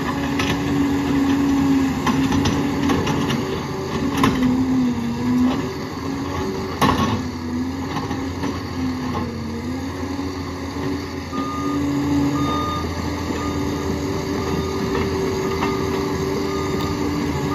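Liebherr PR 746 crawler dozer's diesel engine running, its pitch dipping briefly twice, with a few sharp knocks in the first half. About two-thirds of the way in, its reversing alarm starts beeping steadily.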